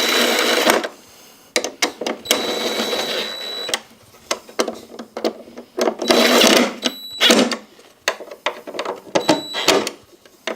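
Cordless screwdriver or drill running in several short runs with a high whine, driving the mounting screws of a garbage disposal's sink flange, with clicks and knocks of the tool and metal parts between the runs.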